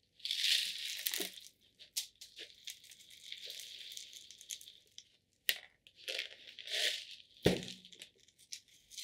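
Dry pon, a mineral granular substrate, being poured and scattered into a plant pot, the granules hissing and rattling in several spells with small clicks. A dull knock about seven and a half seconds in.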